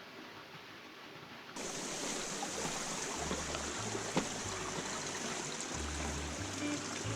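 Rushing water of a mountain gorge stream, a steady hiss that gets suddenly louder about a second and a half in. Deep bass notes of background music come in soon after.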